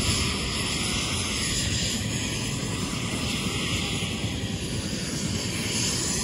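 Steady drone of an aircraft engine overhead, running without a break and with a slow wavering in its tone.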